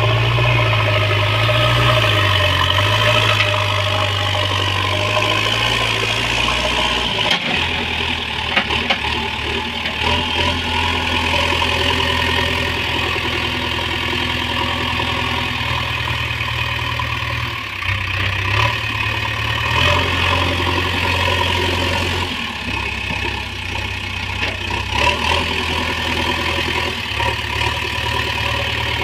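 JCB backhoe loader's diesel engine running under changing load, its note stepping up and down several times. A few sharp knocks sound about seven to nine seconds in.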